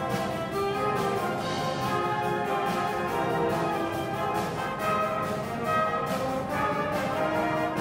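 Background music: a high-school band or orchestra recording with brass to the fore, playing a sustained melody at a steady level.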